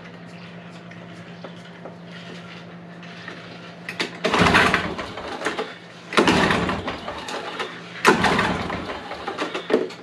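Three pull-starts of a Toro ProLine mower's 2-cycle, 5.5 horsepower Suzuki engine, about two seconds apart. On choke, each pull spins the engine over for about a second, but it does not keep running. The owner puts this down to the choke not engaging all the way.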